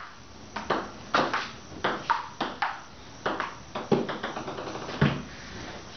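Table-tennis rally: the ball clicking off the paddles and the table, often in quick pairs of hits about every half second, with a louder hit near the end.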